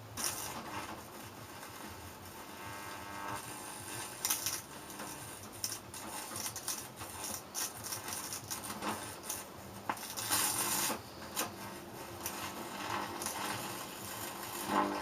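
Compact fluorescent lamp's electronic circuit board being overloaded: irregular electrical crackling and sizzling over a faint hum, loudest around ten to eleven seconds in, as the board fails.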